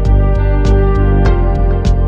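Instrumental background music: sustained pitched tones over a steady light percussion beat.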